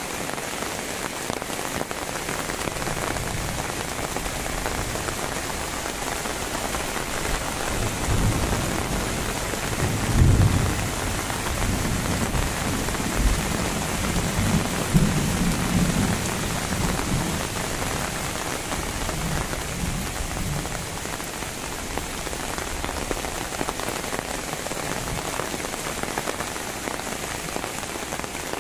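Steady rain falling. A low rumble swells through the middle and is loudest about ten seconds in.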